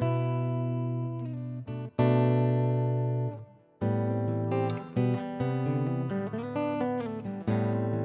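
Acoustic guitar music: chords struck and left to ring, with a brief break just before the middle.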